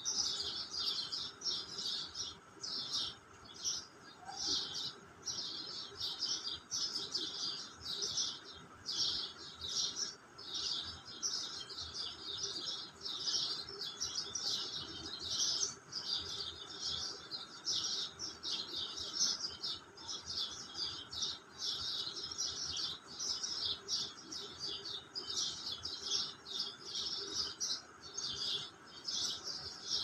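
House sparrows chirping without pause, several short high chirps a second overlapping one another.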